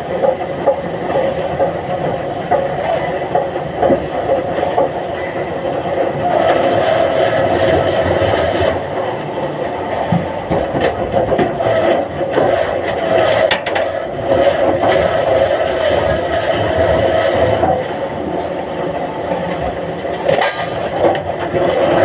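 Wood-mill log-handling and debarking machinery running steadily, growing a little louder about six seconds in, with a few sharp knocks later on.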